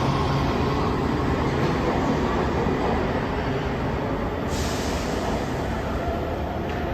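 LA Metro heavy-rail subway train running in an underground station: a steady rumble, with a short burst of hiss about four and a half seconds in.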